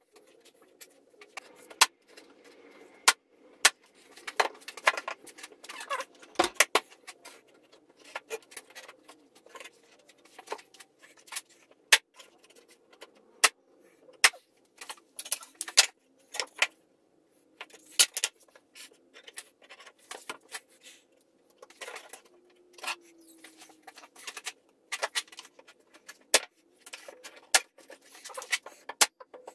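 Irregular sharp clicks and knocks of wooden parts and tools being handled on a workbench while a plywood dog staircase is assembled.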